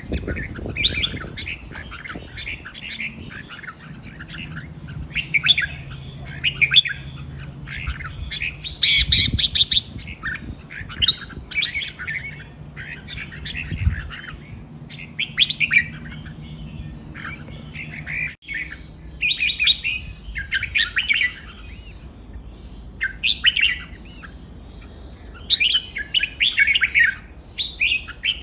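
Caged red-whiskered bulbuls singing: short chirping, warbling phrases one after another with brief pauses between them, sometimes overlapping as more than one bird calls.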